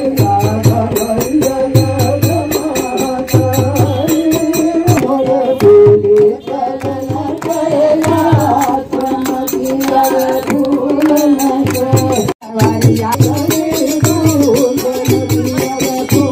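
Group devotional singing of a Shiva bhajan, carried by a steady drum beat of about one stroke a second with hand clapping and a jingling rattle. The sound cuts out for an instant about twelve seconds in.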